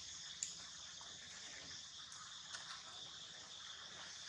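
Insects chirring steadily in a high, even hiss, with a few faint clicks and crackles of dry leaves, the sharpest about half a second in.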